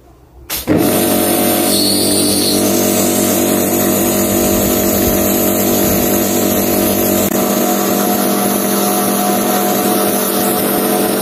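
Kärcher K4 Power Control electric pressure washer starting about a second in and then running steadily: its motor and pump hum under the hiss of the water jet spraying onto paving flagstones.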